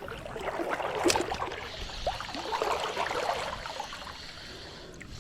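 Shallow river water running and gurgling, with a sharp click about a second in.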